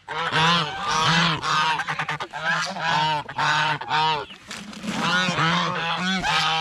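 A flock of domestic geese honking over and over, many short calls overlapping with no break, as they crowd in clamouring for food.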